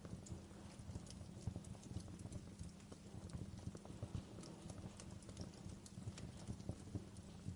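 Wood fire crackling in a fireplace: irregular small pops and snaps over a low, steady rumble of burning.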